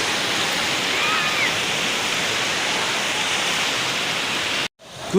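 Steady rushing roar of heavy ocean surf breaking on a beach, which cuts off abruptly near the end.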